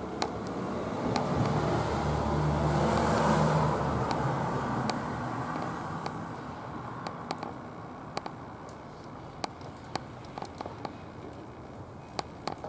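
A passing vehicle's rumble swells to its loudest about three seconds in, then fades away, with scattered sharp clicks throughout.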